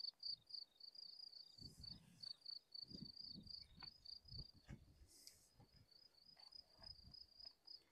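Faint cricket chirping: a fast, even run of high chirps that goes on without a break. Faint low thumps and rustles come and go beneath it.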